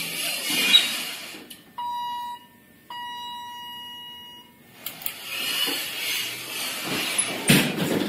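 Elevator sound effect. Sliding-door rushing noise, then two electronic elevator beeps at the same pitch: a short one about two seconds in and a longer one lasting about a second and a half. Then the sliding noise again, ending in a thud near the end.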